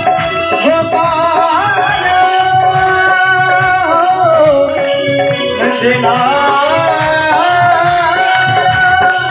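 Harmonium playing a devotional song, its reeds holding steady tones under the melody. A man sings along and a hand drum keeps a steady beat.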